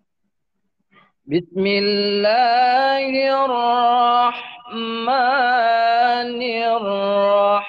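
A man reciting the Quran in the melodic tilawah style, starting about a second in: long held, ornamented notes with the pitch wavering up and down, and a short break for breath near the middle.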